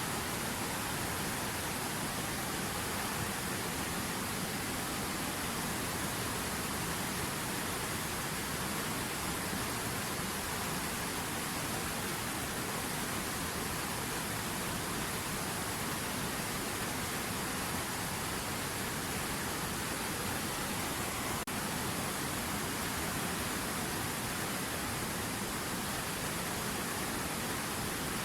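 River water running: a steady, even rush of flowing water that does not change.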